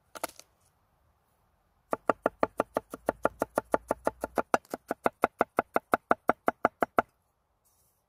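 Knife chopping garlic on a wooden cutting board. After a brief tap near the start, a fast, even run of blade knocks on the wood, about six a second, begins about two seconds in and stops about a second before the end.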